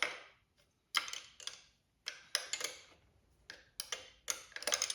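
Wrench ratcheting in short runs of quick clicks with pauses between, as nuts are run up and tightened on the brake master cylinder mount.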